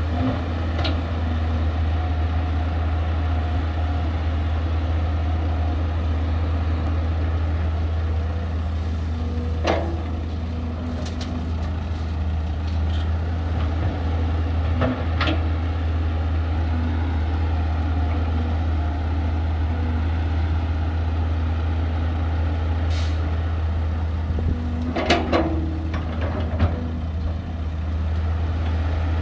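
Heavy diesel machinery running steadily with a deep, even hum. Sharp clanks come about ten and fifteen seconds in, with a cluster of them near twenty-five seconds, and a brief high hiss just before that cluster.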